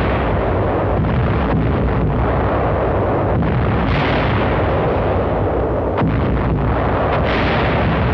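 Heavy anti-aircraft fire and flak bursts: a loud, continuous din of gunfire and explosions, with a sharp crack about six seconds in.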